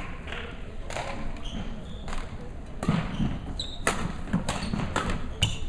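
Badminton rally: rackets striking the shuttlecock in sharp, irregular cracks, with players' footfalls thudding and shoes squeaking on the court floor.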